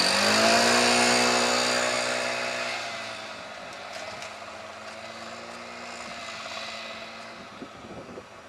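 Beechcraft Bonanza B36TC light aircraft after a gear-up touch-and-go, with its belly on the runway: a pitched engine drone that rises briefly in pitch at the start, under a loud rushing, scraping hiss. Both fade away after about three seconds, leaving a fainter steady drone.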